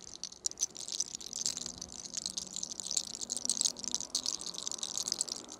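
Fine, rapid crackling of a tightly rolled lock of hair as it is twisted between the fingers and pulled in the hair-cracking scalp technique.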